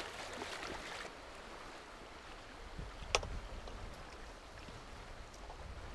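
Steady rush of the Copper River current at the water's edge, with a low rumble coming and going and one sharp knock about three seconds in.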